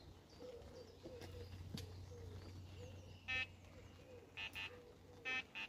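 Electronic carp-fishing bite alarm sounding a series of short, high beeps, first a single one about three seconds in, then quick pairs, as line moves over the alarm's sensor. Faint bird calls come before it.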